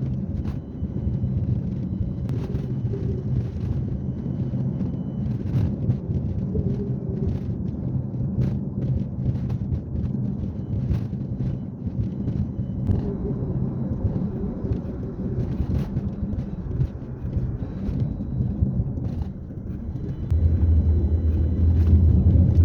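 Car driving along a road, heard from inside: a steady low engine and tyre rumble with scattered short knocks and rattles. About two seconds before the end the low rumble grows louder.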